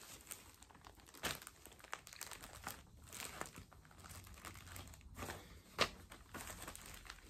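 Packaging crinkling and rustling as it is handled, in a string of short, irregular rustles and light clicks, with one sharper click near six seconds in.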